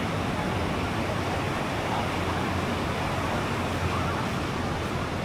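Steady outdoor ambience of road traffic and breaking surf blended into one continuous wash of noise, with no distinct events.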